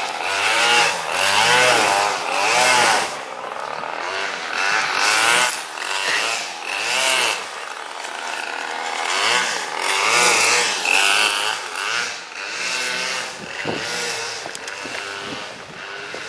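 A small motor, like that of a garden power tool, revving up and down in repeated bursts of about a second each, dying down near the end.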